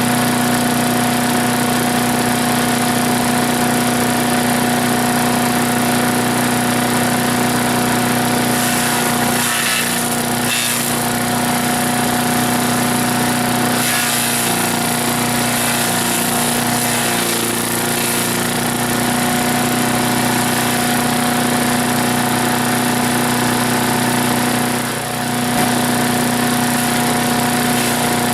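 Troy-Bilt wood chipper's 250 cc single-cylinder Briggs & Stratton engine running steadily at speed on its newly fitted carburetor, with a brief dip about three-quarters of the way through.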